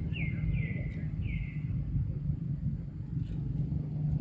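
Steady low rumble of distant traffic, with three short, high chirps falling in pitch in the first second and a half.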